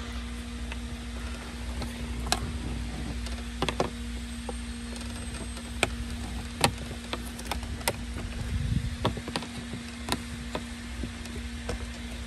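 Scattered sharp clicks and knocks of hands and tools working on a car dashboard's plastic trim and fittings, over a steady hum and low rumble.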